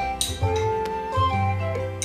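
Background music: a light melody of held notes stepping up and down over a low bass line.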